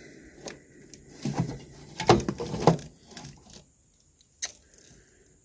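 Scattered light clicks, knocks and rattles of hands handling wires and plastic connectors of a wiring harness, with a quiet gap about three and a half seconds in.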